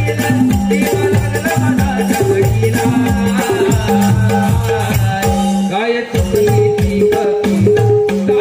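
Live Naman folk-theatre accompaniment: a rhythmic instrumental passage of drum strokes under held notes, with a shaken rattle or jingle running through it. The music drops briefly about six seconds in, with a rising glide, then picks up again.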